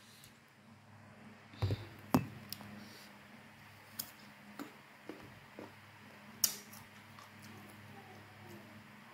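Eating and handling sounds: scattered sharp clicks and crunches as pieces of Indramayu mango dressed in petis sauce are picked from a stone mortar, bitten and chewed. The loudest come about two seconds in and again past six seconds, over a faint steady low hum.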